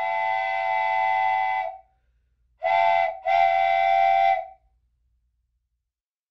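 Train whistle blowing: one long blast, then a short blast and a second long one, each pitch held steady before cutting off.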